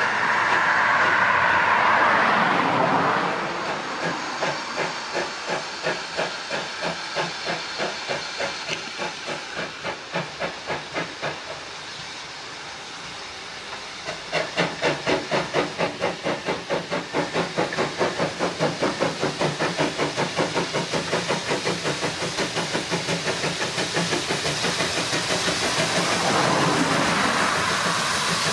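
GWR 57xx pannier tank locomotive 7714 working hard with a train of coaches, its exhaust beating evenly at about two beats a second, fading a little before coming back louder and slightly quicker from about halfway as it draws near and passes. A loud hiss of steam fills the first few seconds and returns near the end.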